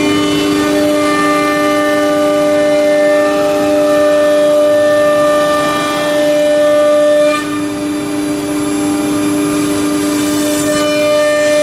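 CNC router spindle whining steadily as the cutter mills grooves into a cabinet-door board, with a dust-extraction hood over the cut. About seven seconds in the tone changes and briefly drops in level as the cutting head shifts.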